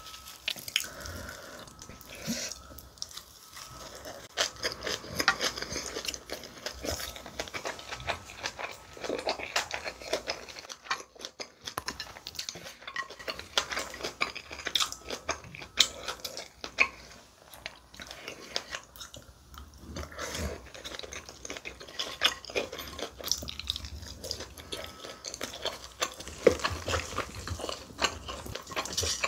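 Close-miked eating sounds: biting and chewing a leaf wrap of pork and spicy salted seafood, crunching fresh cabbage and leaves, with wet mouth sounds and many small crackles. Near the end, chopsticks and a spoon clink against the dishes.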